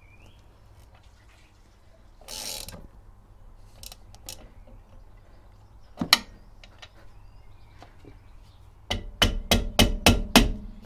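Bolts of the rear drum-brake adjuster being tightened onto a Rover Metro's brake backplate. There are scattered metallic clicks and a brief rustle, then a quick run of about eight sharp clicks and knocks near the end.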